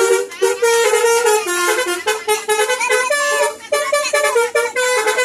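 A bus's telolet musical horn playing a tune: a run of loud horn notes that step up and down every fraction of a second.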